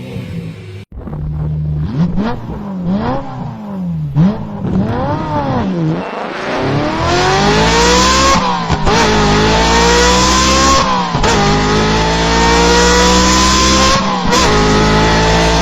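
Dubbed-in race-car engine sound effect. The engine is blipped up and down several times, then accelerates hard through the gears: its pitch climbs steadily and drops back at three gear shifts.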